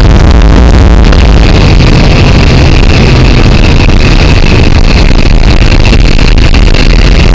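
Propeller aircraft's engine and rushing airflow, heard from inside the cabin at the open door: a steady, loud roar that overloads the recording.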